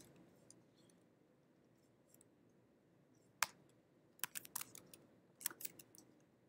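Computer keyboard keys clicking over faint room tone: one sharp keystroke about three and a half seconds in, then two short runs of quick keystrokes.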